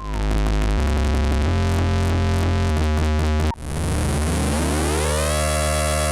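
Moog WerkStatt-01 analog monosynth playing a low bass line, its notes changing every second or so. It cuts off about three and a half seconds in, then a note glides smoothly upward and settles into a held tone.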